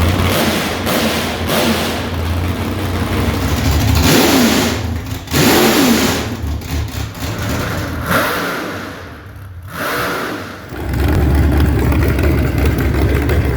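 A vehicle engine running loud and revving up and down, dipping about two-thirds of the way through, then settling into a steadier run.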